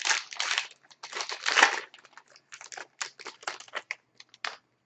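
A hockey card pack wrapper being torn open and crinkled by hand: irregular crackling rustles, loudest about a second and a half in, stopping near the end.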